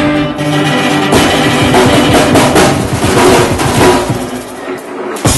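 Live band playing loudly, the drum kit foremost with a fast run of drum hits and cymbal crashes over held chords. The playing falls away about four seconds in, with one more sharp hit near the end.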